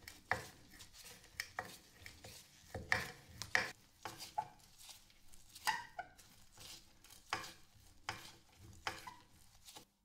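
Slotted wood screws being driven by hand into a wooden board with an antique flat-blade screwdriver. Each twist of the blade in the slot gives an irregular crunching creak or click as the thread bites into the wood, roughly one or two a second.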